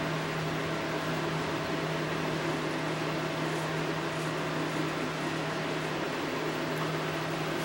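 Steady low electrical or mechanical hum with a hiss behind it.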